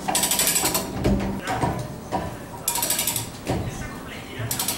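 A chain come-along's ratchet clicking rapidly in three spells, at the start, about three seconds in and near the end, as it is worked with a heavy marine diesel engine hanging from its chain.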